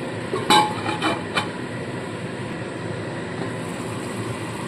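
Spice paste frying in oil in a steel kadai, a steady sizzle, with a metal spatula clinking against the pan three times in the first second and a half.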